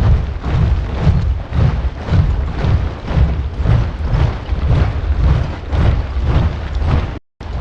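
Boots of a large body of soldiers marching in step, a heavy rhythmic tramp of about two footfalls a second. The sound cuts out for a split second near the end.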